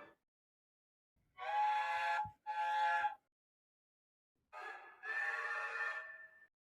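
Engine whistle sound effects, each a steady chord of several pitches: two short blasts about a second in, then after a pause a short toot followed by a longer blast.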